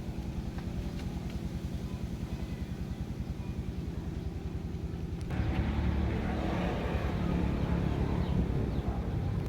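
A small engine running steadily with a fast, even pulse; about five seconds in, a louder, noisier sound joins it for about four seconds.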